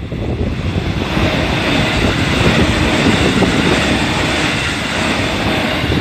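JR Central 313 series electric train running past over a level crossing: the steady running and rail noise of the train swells up about a second in and holds.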